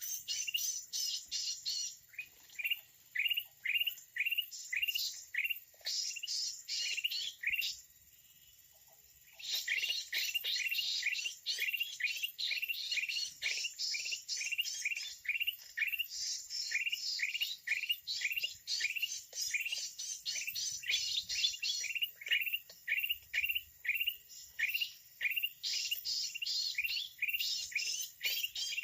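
Asian red-eyed bulbul calls: a fast, steady run of short chirps, several a second, with denser chattering layered over them. The calls stop for about a second and a half about a third of the way in, then resume.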